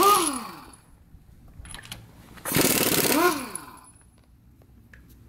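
Pneumatic impact wrench hammering on the lug nuts of a pickup's rear wheel in two bursts about two and a half seconds apart, its whine dropping in pitch as each burst winds down.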